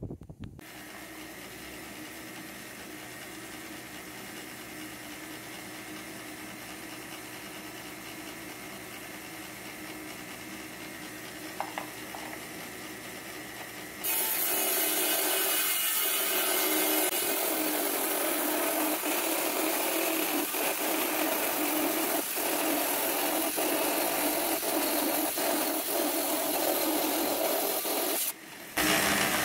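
Lapidary trim saw running with its blade spinning freely. About halfway through, the rock is pushed into the blade and the much louder, rougher sound of the blade cutting stone takes over. The cutting sound drops out briefly just before the end.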